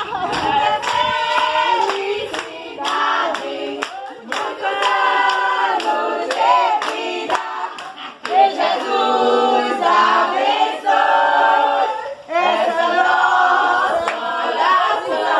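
A group of women singing together in chorus, with hand clapping running through the song.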